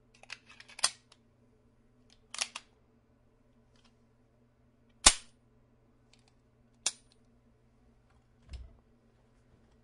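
A Sig Sauer 1911-type .45 pistol making a series of separate sharp clicks and snaps. There is a cluster at the start, a double snap a little over two seconds in, the loudest crack about five seconds in, another about seven seconds in, and a faint low thump near the end.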